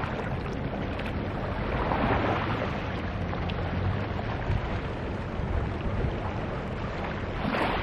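Small waves lapping on a rocky, pebbly sea shore, with wind blowing on the microphone and a faint low steady hum underneath.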